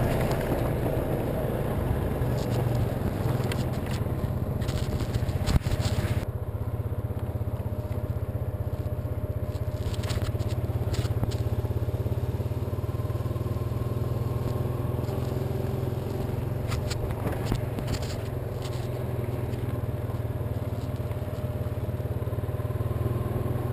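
Honda ATV engine running steadily while riding a trail, with brush scratching against the windshield now and then and one sharp knock about five and a half seconds in.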